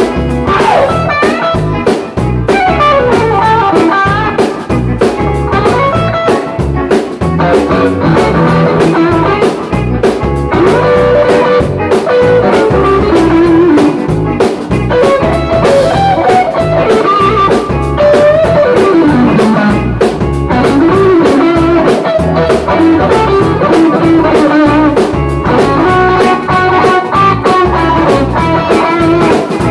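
A live rock and roll band playing an instrumental break: an electric guitar plays a lead with bending notes over bass and a steady drum-kit beat.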